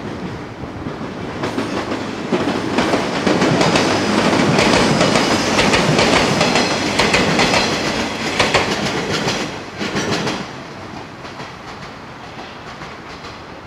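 JR West 115 series electric train passing close by, its wheels clattering over rail joints in regular clicks. The noise builds over the first few seconds, stays loud through the middle, then drops off sharply about ten seconds in as the train moves away.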